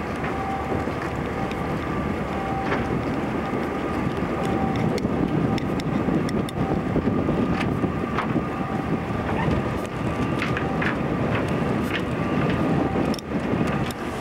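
Ship moving through broken pack ice: a steady noise of engine, water and ice along the hull, with wind on the microphone and scattered short clicks.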